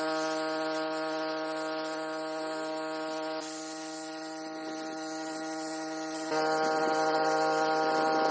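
Electric spray pump motor humming steadily, typical of spraying a post-treatment solution onto cleaned concrete; it gets a little louder about six seconds in.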